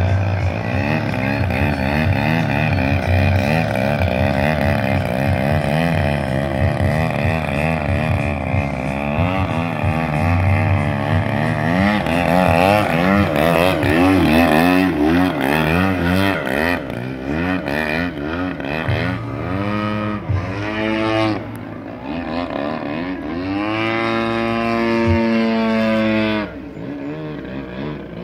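Desert Aircraft DA-120 twin-cylinder two-stroke gas engine on a 3DHS Demonstrator RC aerobatic plane, its pitch rising and falling as the throttle is worked through 3D manoeuvres and the plane passes close. Near the end it holds a steady high pitch, then drops off sharply.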